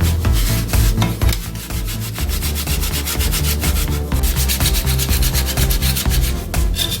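Sandpaper rubbing back and forth over a cordless drill's plastic housing in repeated scratchy strokes: the housing is being sanded down to prepare it for painting.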